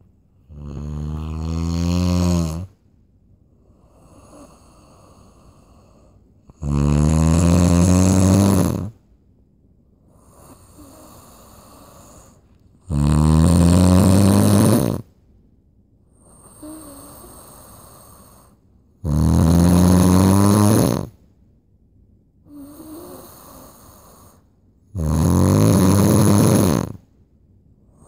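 Loud snoring: five long, low, buzzing snores, each about two seconds, coming about every six seconds, with soft breaths between them.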